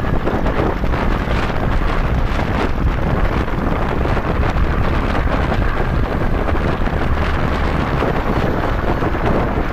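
Wind buffeting the microphone of a moving motorcycle, with the motorbike's engine and road noise running steadily underneath.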